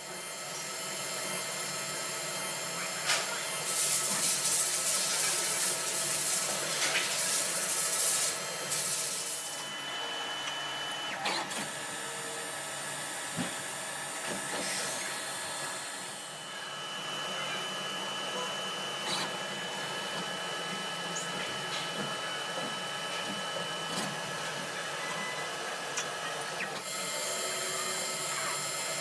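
Citizen Cincom L12 Swiss-type CNC lathe running through a machining cycle: a steady machine hum with several whining tones and scattered clicks. A loud hissing spell comes from about four to nine seconds in, and a steady high whine holds through much of the second half.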